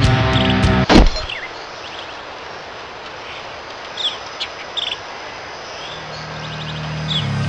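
Heavy rock music breaks off with a loud thump about a second in. What follows is outdoor ambience with scattered bird chirps, and a low drone fades in near the end.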